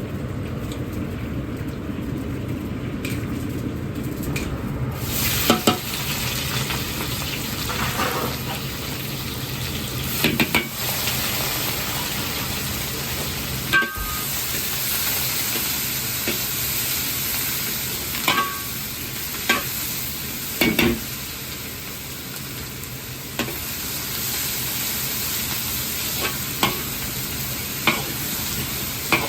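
Food sizzling hard in hot oil in a wok over a roaring gas burner, the sizzle breaking in about five seconds in, with a metal ladle knocking and scraping against the wok a dozen or so times as the food is stir-fried.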